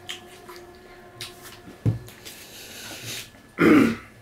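Quiet eating at a table: faint clicks and rustles of hands, food and plates, with a sharp knock about two seconds in. Near the end a man clears his throat once, briefly, and this is the loudest sound.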